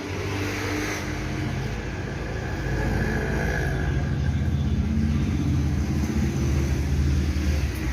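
Low steady electrical hum with a hiss from a CRT television being switched on after repair, growing a little louder about three seconds in.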